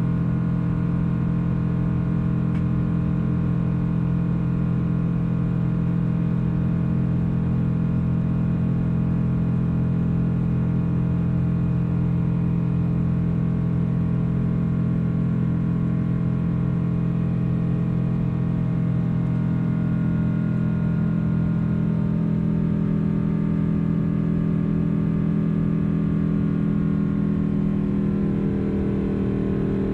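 Boeing 777-200 cabin noise heard from a window seat: the jet engines' steady drone, a stack of steady humming tones over a rush of air noise. Near the end a few of the tones shift in pitch.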